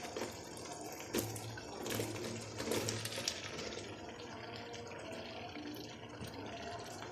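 Chunks of tinda (Indian round gourd) tipped from a glass bowl into a wok of hot masala, a few soft knocks in the first few seconds as pieces drop onto the pan and against the bowl, over a low steady sizzle of the masala.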